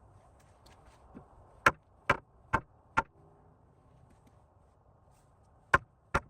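Hammer blows on wood: four strikes about two a second, a pause, then two more near the end.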